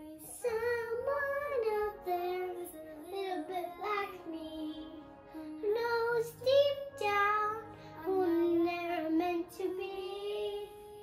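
A young girl singing in long held notes that slide up and down in pitch, with short breaks between phrases.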